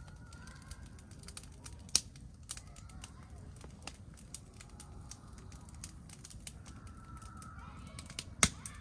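Wood campfire crackling in a steel fire pit, with scattered small ticks and two sharp pops, one about two seconds in and one near the end.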